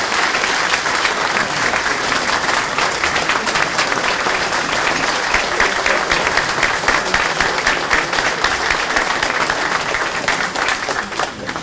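Audience applauding, a dense, steady clatter of many hands clapping that tails off near the end.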